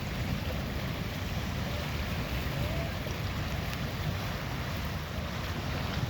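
Steady wind buffeting the microphone: an unbroken low rumble with a fainter hiss above it.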